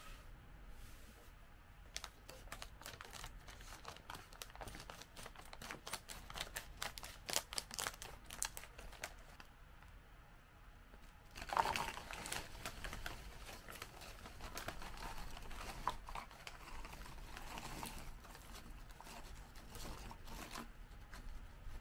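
Plastic snack bag crinkling as it is handled and opened, with dense crackly rustling. About halfway in, light, crisp twice-baked rice crackers slide out of the crinkling bag onto a plate, starting with a sudden louder clatter and going on as rustling and tapping.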